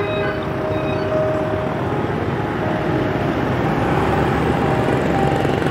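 Street traffic noise: vehicles running and passing, with a steady engine hum that grows slightly louder.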